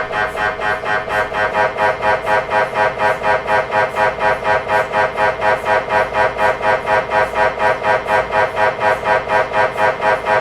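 MRI scanner pulsing in a steady rhythm, about three and a half buzzing pulses a second: the gradient coils switching during a scan sequence.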